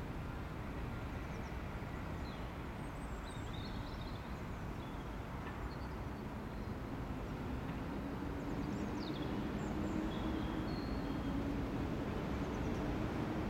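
City ambience: a steady low rumble of distant traffic with a few faint, short bird chirps. From about halfway a low engine hum grows slightly louder.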